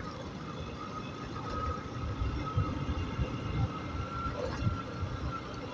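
Motorcycle running at a steady cruise of about 35 km/h, heard from the rider's seat, with uneven low wind rumble on the microphone and a faint steady whine above it.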